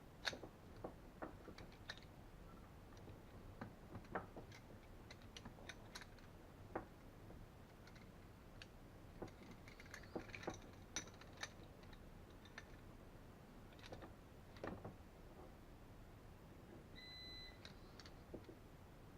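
Faint, scattered clicks and light taps of metal hose fittings being handled as the M22 adapter is tightened onto the pressure washer hose's compression fitting. A brief, thin high tone sounds near the end.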